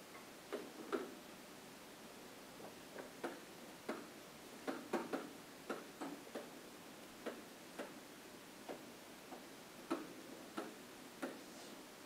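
Pen tapping and clicking on an interactive whiteboard as words are handwritten on it: faint, irregular taps, closest together around the middle.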